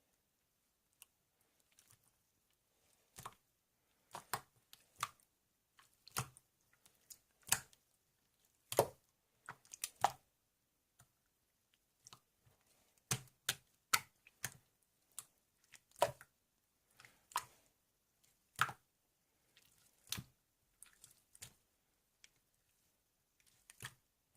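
Irregular sharp clicks and taps, scattered unevenly with short pauses between them.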